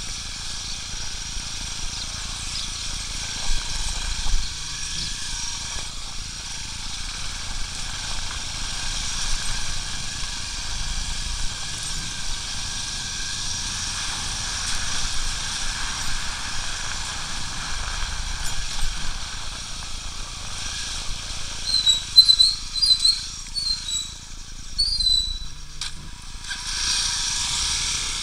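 Wind and road noise from a moving motorcycle on a wet road: a steady hiss over a low rumble. A run of short high chirps comes about three-quarters of the way through, and a louder rush of hiss near the end.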